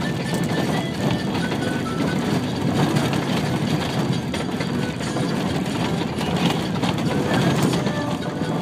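Steady engine and road noise heard from inside a moving bus.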